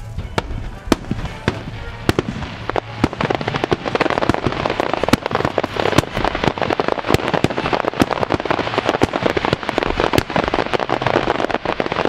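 Starmine fireworks barrage: a rapid series of sharp shell bursts that grows denser after about two seconds into a near-continuous crackle, with music playing underneath.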